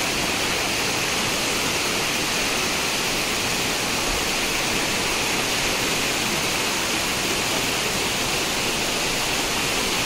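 Waterfall and the shallow rocky stream below it running steadily: an even hiss of falling and flowing water that does not change.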